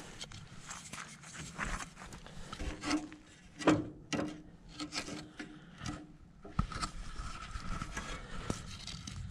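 A dead wooden stick scraping and knocking on gravelly dirt as it is wedged under the foot of aluminium camper steps to level them. Irregular scrapes and knocks, the sharpest a little under four seconds in.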